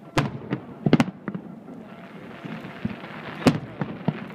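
Aerial fireworks bursting: a run of sharp bangs, loudest about a second in and again past three seconds, with smaller pops between and a steady hiss underneath.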